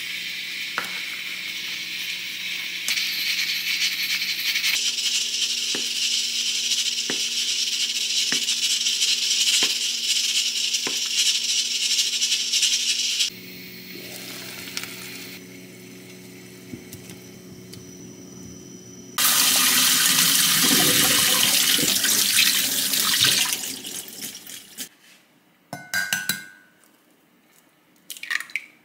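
Kitchen cooking sounds: a steady hiss of water with knife strokes on a cutting board, a louder rush of water about two-thirds through, then eggs tapped on the rim of a glass measuring cup near the end.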